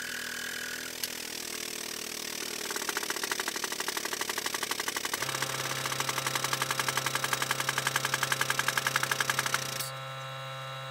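Air-over-hydraulic pump on a 20-ton shop press hissing and then pumping with a rapid even pulse as it presses a wheel hub into a new rear wheel bearing. About halfway through a steady low hum joins in. Shortly before the end the pumping stops and the hum carries on.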